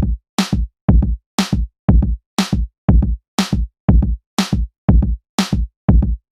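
Electronic music: a steady drum-machine beat at about two hits a second.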